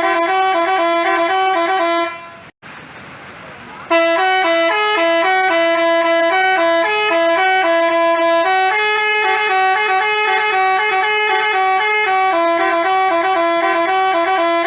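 Multi-tone Basuri telolet bus horn playing a quick tune, its notes stepping up and down several times a second. It breaks off for about two seconds, leaving a faint hiss, then plays the tune again.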